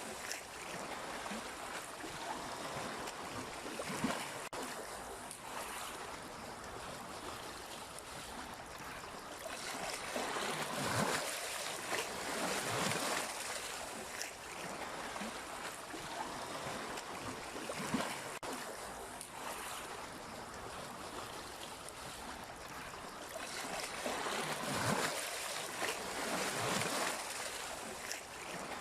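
Sea waves washing onto the shore: a steady rush of surf that swells every few seconds as a wave breaks, then falls back.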